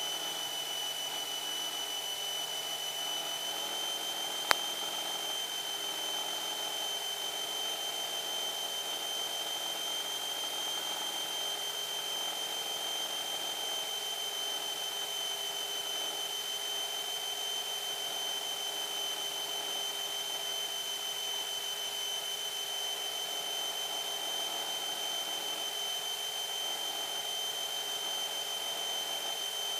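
Aviat Husky's engine and propeller running steadily, heard from inside the cockpit as an even hiss with a constant high whine, with one sharp click about four and a half seconds in.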